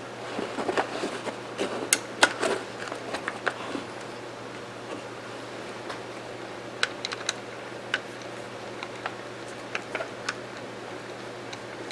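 Light clicks and taps of small metal rifle parts being handled during disassembly of a lever-action rifle, in a quick cluster during the first few seconds, then a few scattered clicks later.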